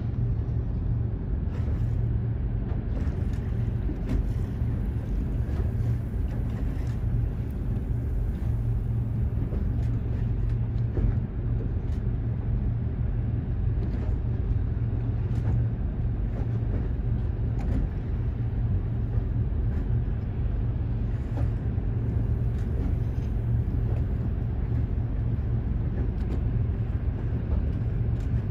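A boat engine running steadily, a constant low drone.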